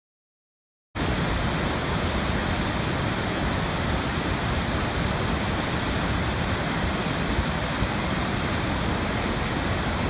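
Steady, even rush of a large waterfall, starting abruptly about a second in.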